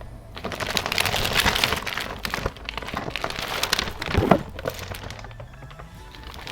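Plastic packaging and a tarp-like picnic sheet crinkling and rustling as they are handled and unfolded, in irregular bursts.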